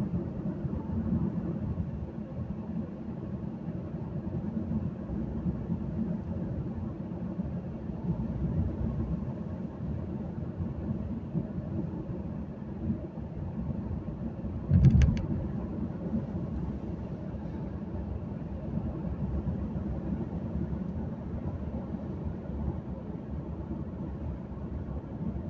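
Inside a moving car's cabin: the steady low rumble of the engine and tyres on the road. About fifteen seconds in there is a single brief knock.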